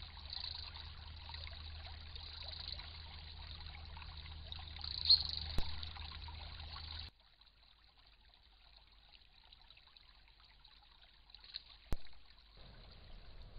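A shallow stream trickling over stones, picked up by a trail camera's microphone, with a sharp click about halfway. It cuts off abruptly about seven seconds in to a much quieter stretch with one more click near the end.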